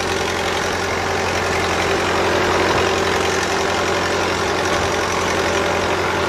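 Vintage farm tractor engine running steadily at low speed as it tows a wagon along a trail.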